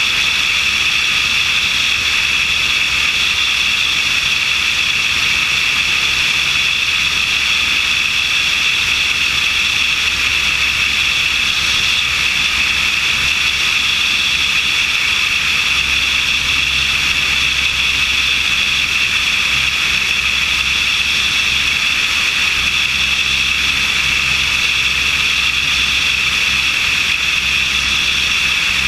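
Steady in-flight noise of an aircraft heard from a camera mounted on its wing: a constant high rush of airflow over the engine and propeller drone, unchanging throughout.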